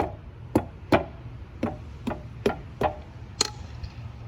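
A steel pry bar tapping on a Cat 299 skid steer's rubber track, a run of about eight sharp knocks at roughly two a second, over a low steady hum. The tapping is a check for a bad track roller.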